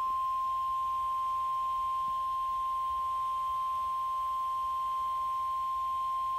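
NOAA Weather Radio 1050 Hz warning alarm tone: one steady, unbroken high tone, the signal that a warning broadcast follows, here a flood warning.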